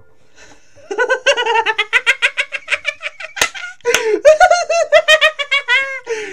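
A person laughing hard in a long run of rapid, high-pitched ha-ha bursts, starting about a second in. There is a brief break near the middle, marked by a sharp click, before the laughing picks up again.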